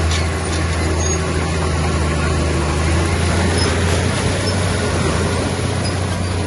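Diesel engine of heavy earthmoving machinery running steadily at a constant level, with a low, even hum.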